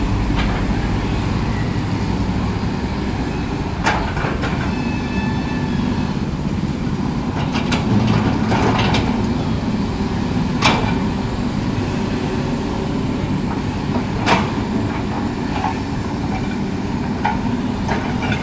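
Komatsu tracked hydraulic excavator's diesel engine running steadily as it digs out a road, with sharp clanks of the bucket striking broken road rubble every few seconds. Motorcycles pass close by.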